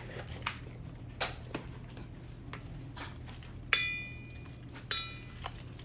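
Stainless steel bolt snap and buckle clicking and knocking against each other and the scuba tank while webbing is threaded through them; two louder knocks near the end ring briefly with a metallic tone.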